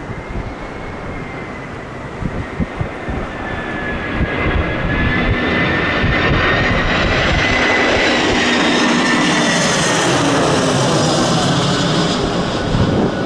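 Airliner passing close on approach in strong wind, its engines' whine building up and sliding slowly down in pitch as it goes by, loudest about ten seconds in. Wind gusts buffet the microphone at the start.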